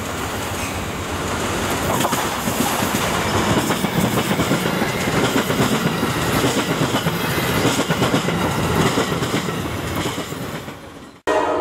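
Amtrak passenger train, pushed by a GE Genesis locomotive, passing close at speed: a loud, steady rush of wheels rolling and rattling on the rails as the coaches go by. It cuts off suddenly near the end, and a train horn starts right after.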